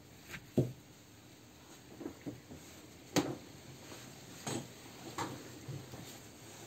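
Handling noises of a classic Mini brake master cylinder and its plastic fluid reservoir on a workbench. There is one louder, low knock about half a second in as the metal cylinder is moved on the bench, then a few lighter scattered clicks and knocks as the reservoir is picked up and turned in the hand.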